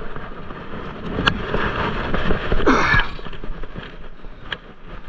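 Handling of a freshly hauled magnet-fishing find: a heavy rusty metal pulley wheel and its rope knocked and scraped about on concrete, with a sharp knock about a second in and a louder scrape near three seconds.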